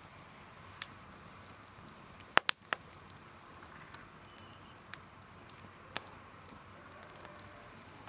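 Wood fire burning in a metal fire pit, crackling: scattered sharp pops over a faint steady hiss, with the loudest cluster of three pops about two and a half seconds in.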